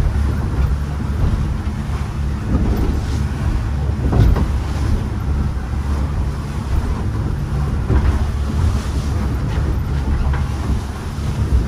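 Boat engine running steadily underway, a constant low hum, with wind on the microphone and a couple of thumps about four and eight seconds in.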